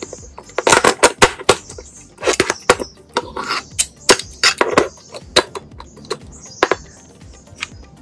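Black painted steel bracket with bolted pivot arms clanking and knocking as it is handled and set down on a wooden table. The knocks come in an irregular run, thickest in the first five seconds and sparser after, with soft background music underneath.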